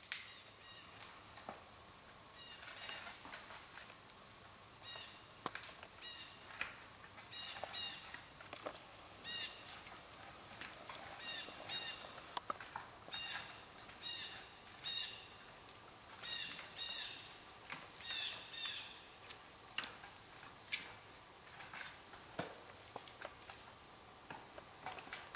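Red stag thrashing a downed tree with its antlers: scattered sharp cracks and knocks of wood and branches breaking. Over it, a bird calls again and again in short chirps every second or two.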